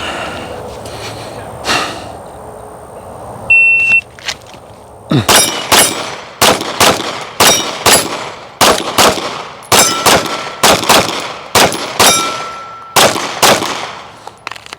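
A single electronic beep, a shot timer's start signal, then a Glock 45 9mm pistol fires about sixteen rapid shots, mostly in quick pairs, as the shooter transitions between targets. Steel targets ring with a clang on some of the hits.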